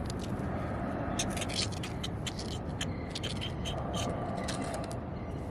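Irregular scraping and scratching in sand, a quick run of gritty scratches over a steady low background noise.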